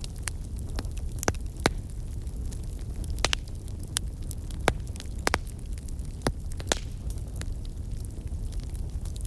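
Wood fire crackling in a fireplace: irregular sharp pops, about a dozen, over a steady low rumble.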